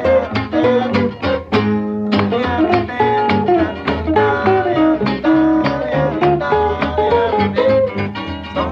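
Instrumental passage of a swing-era string band record: picked and strummed acoustic guitars over a plucked upright bass, playing a brisk, bouncing swing rhythm.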